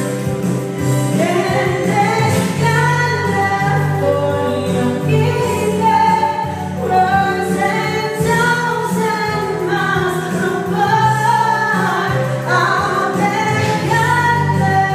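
Women singing a pop song into handheld microphones over an electronic keyboard accompaniment, amplified through a PA.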